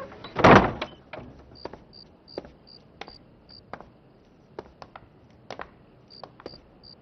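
One loud thud about half a second in, then scattered light footsteps and knocks on a hard floor, over an insect chirping in short, high, evenly spaced pulses.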